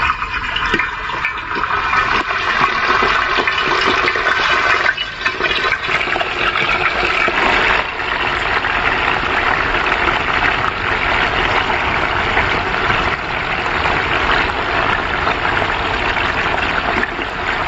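Masala-coated chicken pieces deep-frying in a wide pan of hot oil, with more pieces dropped in by hand: a loud, steady sizzle.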